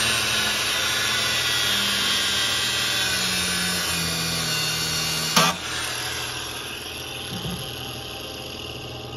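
Angle grinder cutting into the rusty metal of an old truck body: a loud, high-pitched grinding whine, one sharp crack about five seconds in, then the grinder running on and growing gradually quieter.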